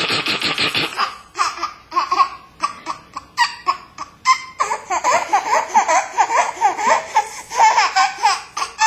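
Baby laughing in a long run of short, high-pitched bursts that come thicker and faster after about five seconds, opened by a raspy, breathy burst of noise in the first second.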